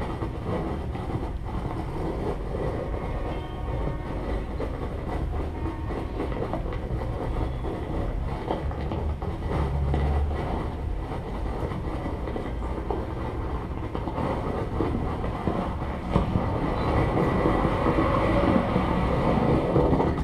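Amplified plant materials played by hand and heard through loudspeakers: a continuous dense crackling, scraping and rumbling, growing louder in the last few seconds.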